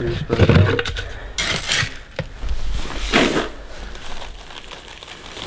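Grain scooped with a metal scoop from a plastic bucket and poured into a rubber feed pan on straw. It comes as a few short rattling pours with a sharp knock about two seconds in, then dies down.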